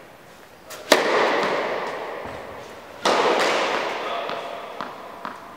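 Tennis racket striking the ball on a serve about a second in, a sharp crack with a long echo through the indoor hall. A second loud impact with a long echo follows about two seconds later, then a few light taps of the ball being bounced on the court.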